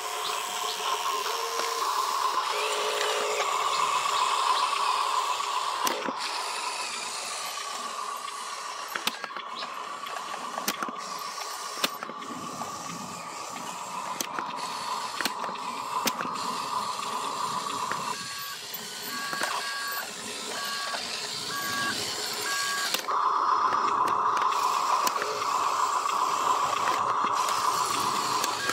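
Steady electric whine of a radio-controlled dump truck as its tipper bed raises on the lifting cylinder. Sharp clatters of rocks sliding out of the bed come at intervals. After about 18 seconds a regular two-tone electronic beeping plays for about five seconds, then the whine returns louder.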